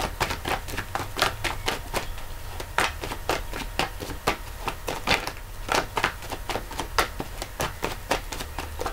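A deck of tarot cards being shuffled by hand: a quick, irregular run of soft card clicks and slaps, about four or five a second.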